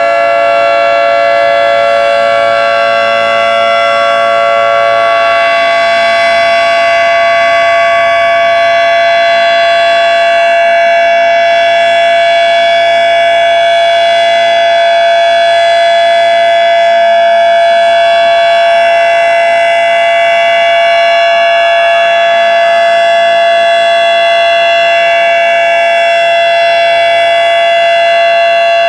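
Federal Signal 2T22 two-tone outdoor warning siren sounding a steady alert signal: a held, loud chord of two pitches at an even level.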